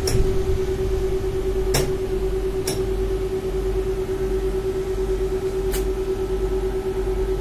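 Inside a moving tram: the low rumble of the car running along, under a steady electric hum held at one pitch. Four short clicks come through it, two of them close together around the two-second mark.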